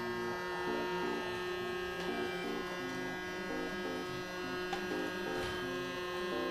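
Battery-powered Barbie toy vacuum cleaner running with a steady, noisy motor buzz as it sucks up polystyrene beads. A simple electronic tune of short stepped notes plays alongside.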